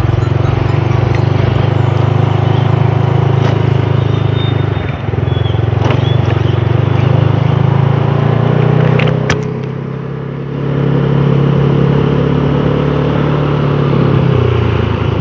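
Dafra Laser 150 scooter's single-cylinder engine running under way, with wind rushing past. The engine note dips briefly about ten seconds in and then picks up again.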